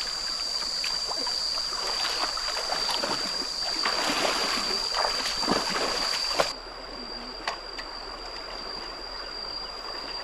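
Water splashing and churning as a person wades through a shallow, flowing stream, over the running of the stream. About six and a half seconds in the splashing stops abruptly, leaving the quieter, even rush of the stream with a few faint splashes.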